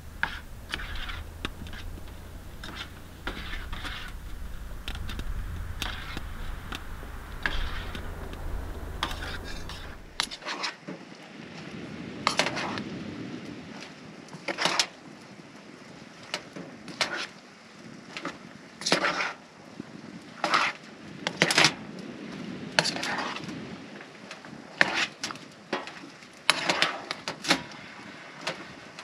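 A metal spoon stirring and scraping in a metal cooking pot, with irregular sharp clinks against the pot. A steady low rumble underlies the first third and cuts off suddenly.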